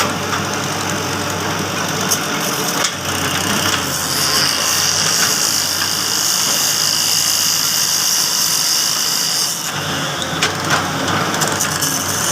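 Shantui excavator's diesel engine running steadily, with a high whine that joins about four seconds in and cuts off about nine and a half seconds in. A few light knocks come near the end.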